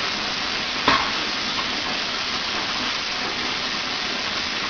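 Steady hiss of running water splashing onto a wet tiled floor, with one short knock about a second in.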